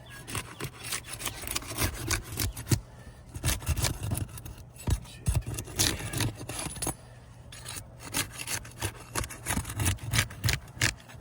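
Roof shingles being worked loose by hand with a tool: repeated irregular scraping, rubbing and short sharp knocks as they are pried free, with a brief lull a little past the middle.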